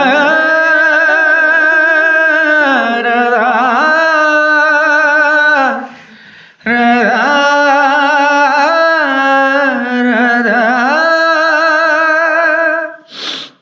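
A voice singing a slow Nepali song in two long phrases of drawn-out, wavering notes, with a short break for breath about six seconds in.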